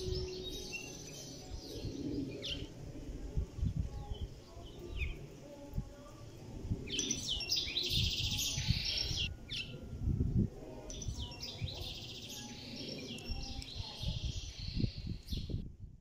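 Several small birds chirping and singing, with denser bursts of rapid twittering about halfway through and again later, over a low, uneven rumble.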